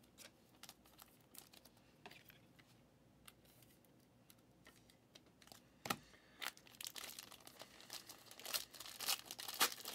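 Foil trading card pack wrapper crinkling and tearing as it is handled and opened. It starts with a few faint clicks, then builds into denser crinkling over the last few seconds.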